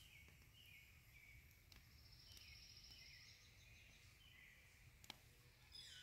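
Faint birdsong: short chirping notes repeated throughout, with a high buzzy trill about two seconds in, over a low rumble of wind or handling noise.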